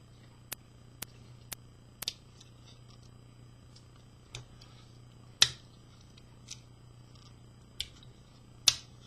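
Sharp metallic clicks of a Victorinox Trailmaster One Hand pocket knife's blade and liner lock being worked: about nine separate clicks, a quick run of four in the first two seconds, then more spaced out, the loudest about halfway through and near the end.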